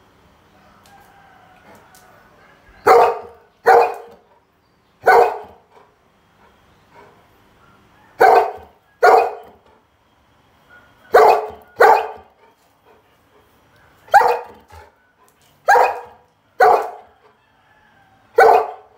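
Golden retriever barking: about eleven short, loud barks, mostly in quick pairs, with pauses of a second or two between them.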